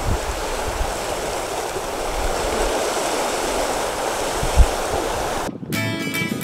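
Choppy water sloshing and rushing around a sailboat under sail, with wind buffeting the microphone in gusts and one hard thump about four and a half seconds in. Near the end it cuts off abruptly to acoustic guitar music.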